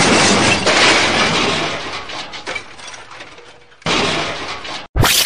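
Crash sound effect of glass shattering: a loud smash that dies away over about three seconds. A second burst of noise follows about four seconds in and cuts off abruptly a second later.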